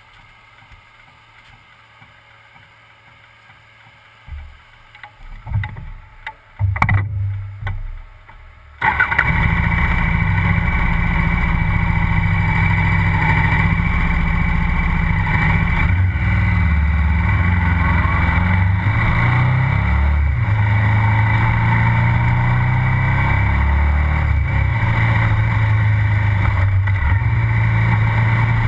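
Quiet at first, then a few loud uneven bursts. From about nine seconds a KTM 990 SMR's V-twin engine and exhaust run steadily and loud as the motorcycle is ridden, the pitch stepping up and down with throttle and gear changes.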